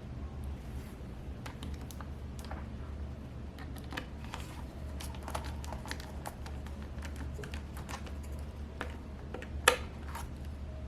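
Small irregular clicks and ticks of a magnetic Phillips screwdriver turning screws into a laptop's display assembly, with one louder click near the end.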